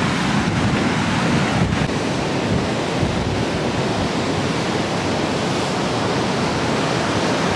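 Steady rush of ocean surf with wind buffeting the microphone.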